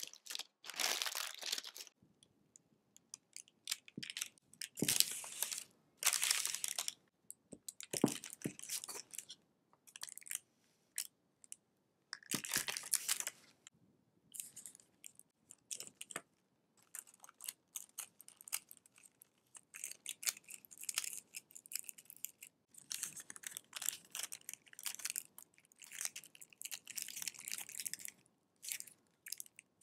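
Paper rustling and crinkling in short, irregular bursts as hands fold parchment paper and wrap milk candies in paper wrappers, with a few soft knocks.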